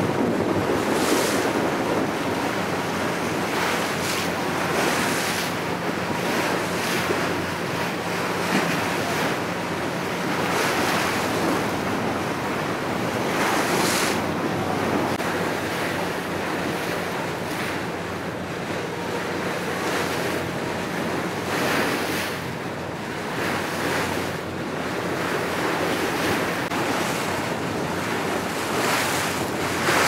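Sea water rushing and splashing past a moving boat, with wind buffeting the microphone in repeated gusts and a low, steady engine hum underneath.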